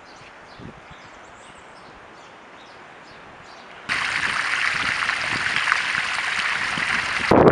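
Faint bird chirps over quiet outdoor ambience. A little under four seconds in, a loud, steady rush starts: water gushing out of the end of a blue lay-flat discharge hose and splashing onto tarmac. It cuts off abruptly shortly before the end.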